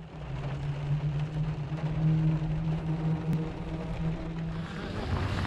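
Rain pattering on a car windshield, heard from inside the cabin, over the steady hum of the car's engine running. The hum cuts off about four and a half seconds in, leaving the rain.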